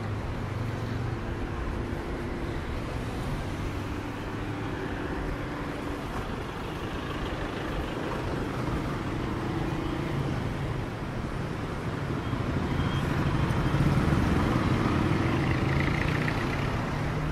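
Street traffic: engines of passing vehicles over a steady road noise, swelling as one passes closer about fourteen seconds in.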